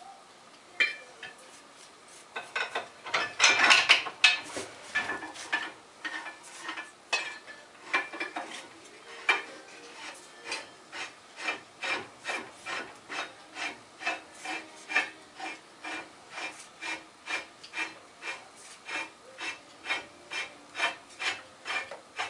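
Antique GM Yost woodworking vise being worked open, its jaw and screw scraping metal on metal. A dense burst of scraping comes about three seconds in, then an even run of short scrapes, about two a second, as the jaws are opened wide.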